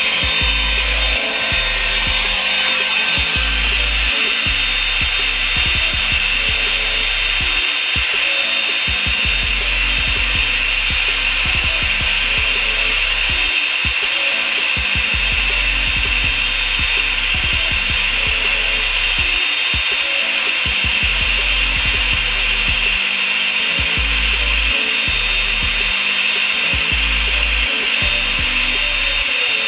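Revlon brush blow dryer running steadily, a constant fan hiss with a high whine, as it is worked through the hair.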